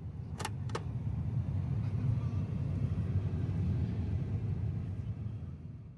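A steady low rumble that swells up and then fades away, with two sharp clicks about half a second apart near the start.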